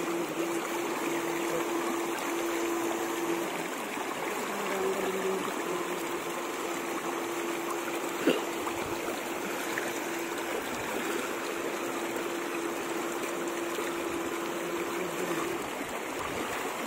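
Shallow river water rushing over rocks, with a steady electrical hum, from the backpack electrofishing rig's power unit, that cuts out and resumes several times. A single sharp click about eight seconds in.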